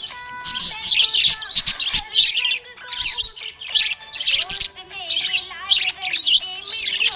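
Small pet parrots chirping and warbling in a dense, rapid chatter of overlapping calls.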